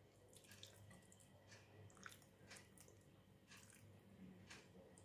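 Near silence, with a few faint soft clicks from fingers working chermoula paste and picking up raw sardines.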